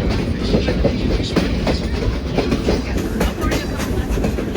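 Passenger train rolling along the track: a steady low rumble of the cars with an irregular clatter and rattle of wheels over the rail joints.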